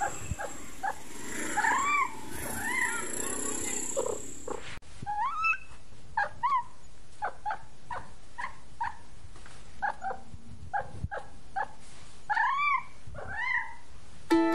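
Feral tabby kitten mewing again and again: short calls that rise and fall, a few longer and louder ones about 2 s in, about 5 s in and near the end.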